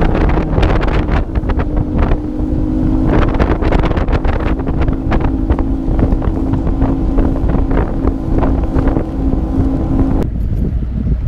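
Bass boat's outboard motor running at speed, a steady drone under heavy wind buffeting on the microphone and repeated thumps as the hull crosses choppy water. About ten seconds in the engine tone and thumps drop out abruptly, leaving mostly low wind rumble.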